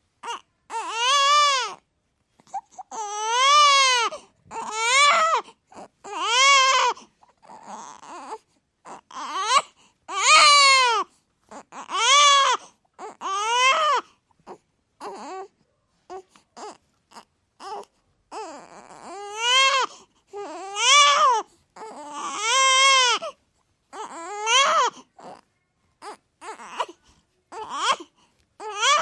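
Baby crying hard: a run of loud wails, each about a second long, rising then falling in pitch, broken by short catching breaths and whimpers.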